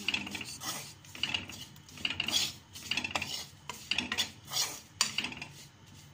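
Steel spoon stirring and scraping a thick fried spice masala in a pan: repeated scraping strokes with clinks of metal on the pan, about two a second.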